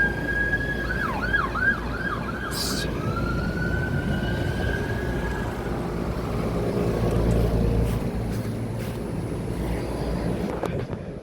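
An emergency vehicle siren sounds a wail, switches to a fast yelp about a second in for roughly two seconds, then returns to a long wail. Underneath runs the steady low hum of air-conditioner condensing units running.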